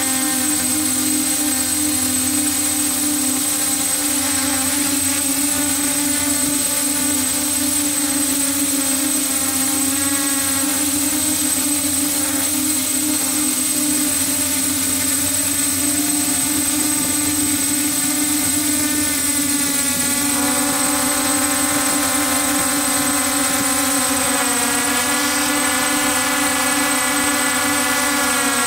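DJI F550 hexacopter's brushless motors and propellers running steadily in flight, heard close up from the onboard camera, with a thin steady high whine over the drone. The motor pitch shifts about two-thirds of the way through and again a few seconds later.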